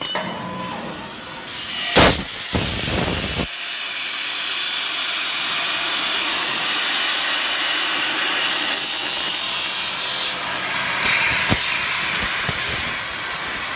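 CNC plasma cutter's torch cutting metal: a steady, harsh hiss, preceded by a sharp loud burst about two seconds in.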